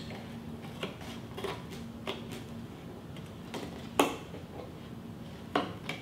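Scissors cutting through the cardboard wall of a painted milk carton: a series of short, sharp snips at irregular intervals, the loudest about four seconds in.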